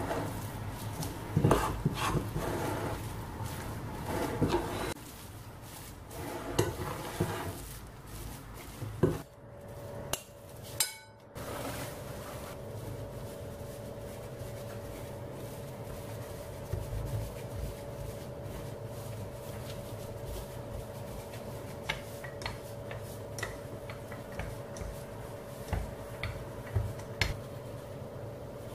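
Metal spoon stirring flour into dough in a glass mixing bowl, with scraping and clinks against the glass. After a brief break, only soft taps and rubbing are heard, over a steady hum.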